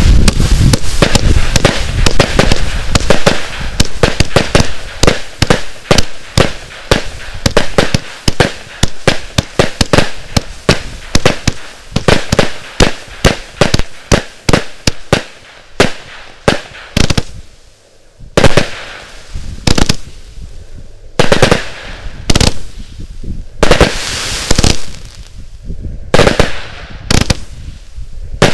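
A 70-shot compound firework cake firing in rapid succession: dense volleys of launch pops and bursts, several a second, thinning after about fifteen seconds to slower, spaced shots, some trailing off into a second or so of hiss.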